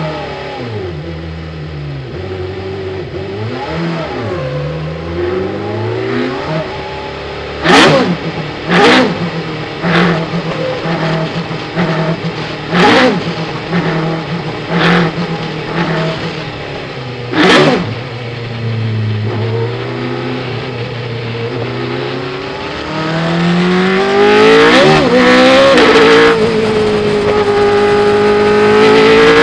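Formula Renault 3.5 single-seater's engine, heard from onboard: it pulls away and runs at low revs with a string of about seven sharp loud bangs in the middle stretch. It then revs up hard, with an upshift near the end.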